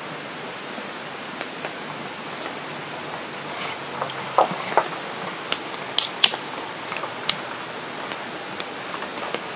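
Steady hiss of rain, with a short fizzing hiss a few seconds in and a few sharp clicks after: aluminium pull-tab cans of Horoyoi chūhai being cracked open.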